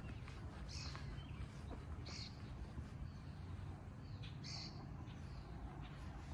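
A bird chirping: three short, high calls spaced a second or two apart, over a low steady rumble.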